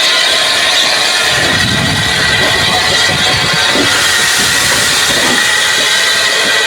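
Steam locomotive hissing steam, a steady loud hiss with a low rumble under it through the middle.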